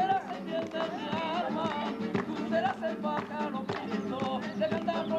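Flamenco-style music: plucked guitar with a wavering, ornamented vocal melody over it.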